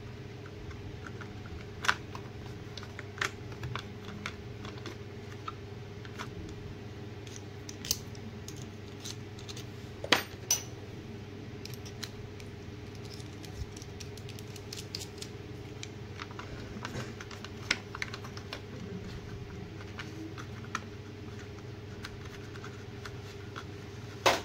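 Irregular small metallic clicks and taps of pliers working on a power-supply board, loosening the fastening that holds a bridge rectifier to its heatsink, over a steady low hum. The sharpest click comes about ten seconds in.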